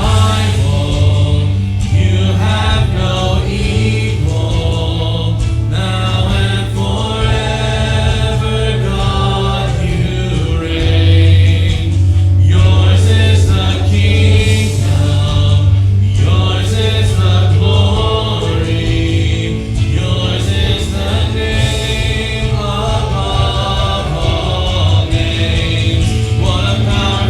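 Live contemporary worship music: a band with a strong, steady bass and a group of voices singing together.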